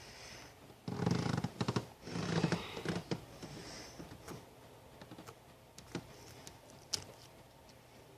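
Hands squishing and stretching slime: two bouts of wet crackling, about a second and two seconds in, then scattered faint clicks and pops.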